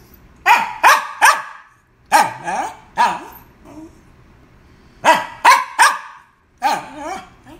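Small red spitz-type dog barking in four short bursts of two or three sharp barks each, about ten barks in all.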